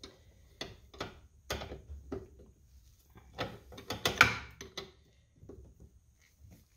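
Irregular clicks and scrapes of a 9/16 line wrench on a brake-line flare nut at the master cylinder as the loosened nut is unscrewed. The loudest click comes about four seconds in, with fainter ones near the end.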